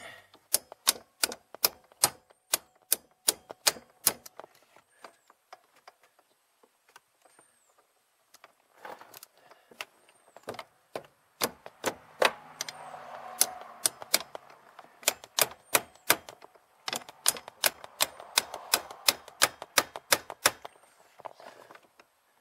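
Quick, evenly spaced metal taps of a hammer on a car's steering shaft, about three strikes a second, in three runs with pauses between, the shaft being driven loose during a steering shaft replacement.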